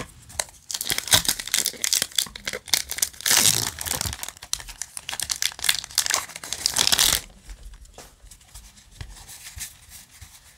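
A foil trading-card booster pack wrapper crinkling as it is handled and torn open, with the loudest tearing around three and a half and seven seconds in. After that, fainter rustling as the cards are taken out and handled.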